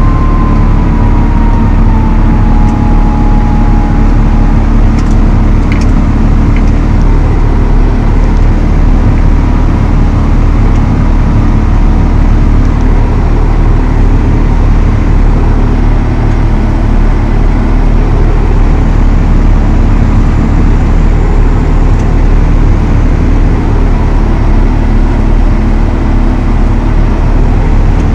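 Valtra T214 tractor's six-cylinder diesel running steadily at working revs, with a faint whine that slides down in pitch over the first few seconds.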